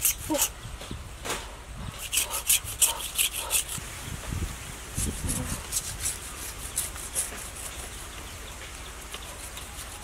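Quick rhythmic scraping as a strand of wild vine is worked against a knife blade to strip it, several strokes a second. The strokes are strongest in the first few seconds, then grow fainter and sparser.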